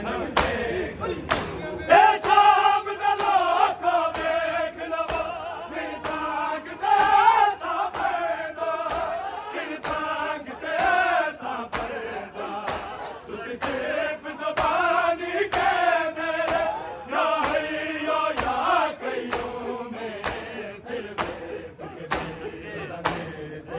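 A group of men chanting a Punjabi noha in unison, with a steady beat of sharp slaps from matam, hands striking chests, a little more than one a second.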